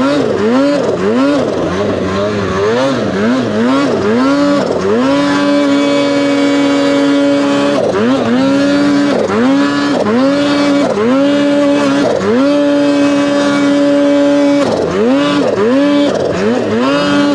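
2023 Polaris Khaos Boost snowmobile's turbocharged two-stroke engine, fitted with an SLP Competition Can exhaust, revving hard: quick throttle blips about twice a second at first, then held at steady high revs with short drops and pulls, and quick blips again near the end, as it is ridden through deep snow.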